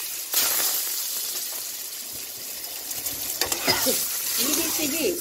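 Peeled boiled eggs sizzling in hot oil in an aluminium karahi. The sizzling jumps up sharply about a third of a second in, as more eggs go into the oil, then settles into steady frying. From about three seconds in, a metal spatula scrapes and knocks against the pan as it turns the eggs.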